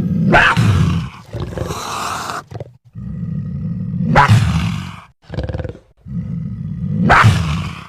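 Monster growls and snarls mixed from cougar snarls and growls and pitch-lowered coyote sounds. A low rasping growl is broken by three loud snarls about three seconds apart, with brief pauses between them.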